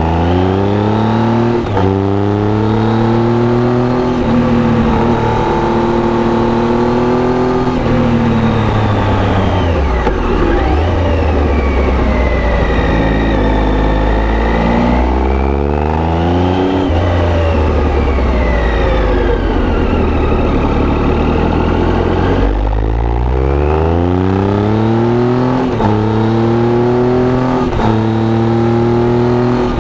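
2011 Triumph Tiger 800's three-cylinder engine breathing through an aftermarket Arrow exhaust, on a ride. It revs up through the gears in repeated rising steps, drops in pitch when the throttle is closed twice, then pulls hard up through the gears again near the end.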